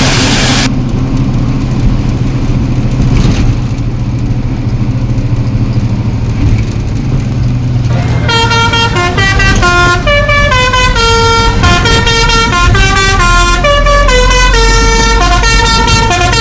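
A bus engine running steadily, then about halfway through the bus's musical horn starts playing a tune of quick stepped notes that rise and fall.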